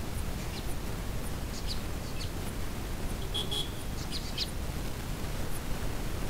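Small birds giving short, high chirps, scattered through and busiest about halfway, over a steady low rumble of wind noise.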